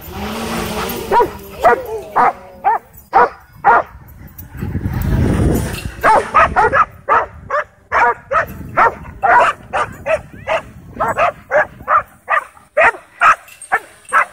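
Dogs barking excitedly at a drone hovering overhead: a string of sharp barks that turns into a fast, steady run of about three barks a second in the second half.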